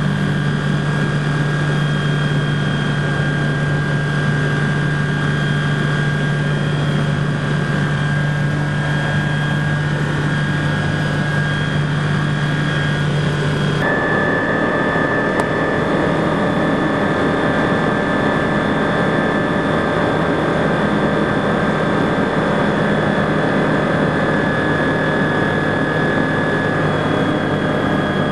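Steady drone of a BushCaddy R-80 floatplane's Rotax 912 flat-four engine and propeller in cruise, heard from inside the cockpit. The tone changes abruptly about halfway through.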